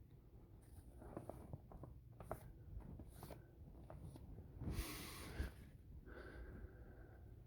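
Faint scratching and small clicks of a pen writing on paper, with a short burst of breathy noise about five seconds in as the loudest sound.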